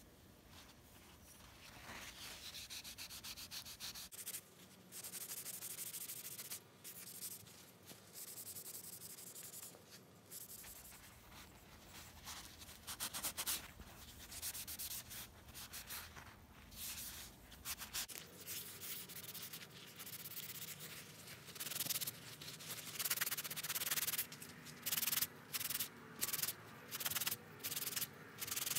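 A cloth rubbing butcher block mineral oil into a bark-covered wooden pipe bowl, oiling the finish: dry, scratchy scrubbing in irregular strokes, louder and more clearly separated near the end.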